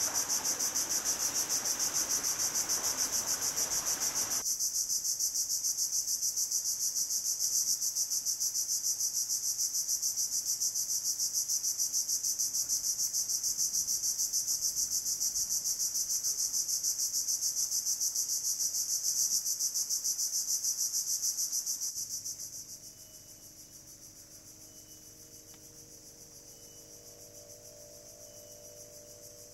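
Dense chorus of tropical insects: a loud, high-pitched, rapidly pulsing trill. A lower rushing noise under it stops about four seconds in, and about 22 seconds in the chorus drops sharply in level and carries on faintly.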